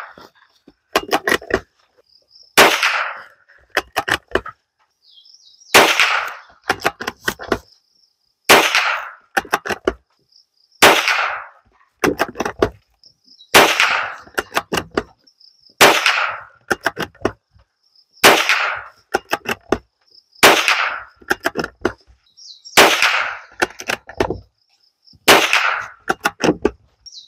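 A Ruger American .22 bolt-action rifle fired ten times at a steady pace, about one shot every two and a half seconds. Each shot is followed by a quick run of clicks as the bolt is worked.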